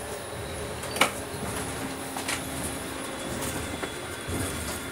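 Steady running rumble of a moving passenger train, heard from inside a carriage vestibule. A sharp knock comes about a second in, and a lighter one a little after two seconds.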